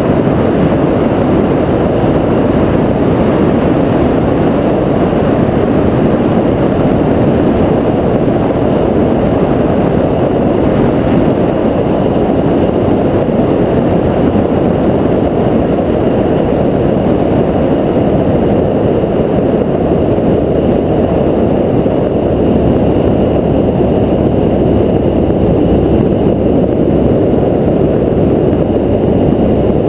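Cessna 172R's four-cylinder Lycoming engine and propeller running steadily with rushing wind noise, through final approach and landing on the runway.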